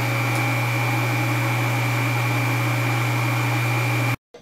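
PrimeWeld 325X TIG welder and its water cooler running just after being switched on: a steady machine hum with a faint high whine, cutting off abruptly near the end.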